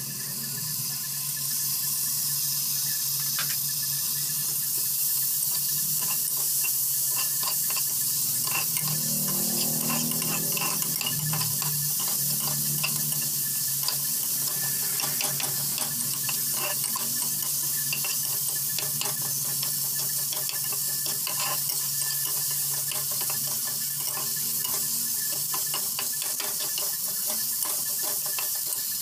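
Chopped tomatoes and fried onions sizzling in hot oil in an aluminium pressure cooker pot, with a metal spatula scraping and clicking against the pot as they are stirred.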